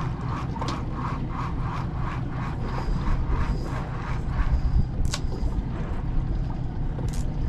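Fishing reel cranked in a steady rhythm while working a slow jig, about three turns a second, easing off about halfway through. A steady low rumble of wind and water runs underneath, with two sharp clicks near the end.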